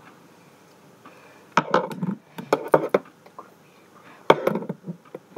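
Several sharp knocks and clatters of hard objects handled on a hard surface, coming in three short clusters: about a second and a half in, around three seconds in, and a little after four seconds.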